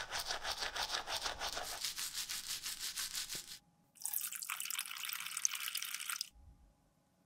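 A brush scrubbing foamy soap inside a plastic container in quick, rapid strokes. After a short pause, tap water runs into the container and splashes into a stainless steel sink for about two seconds.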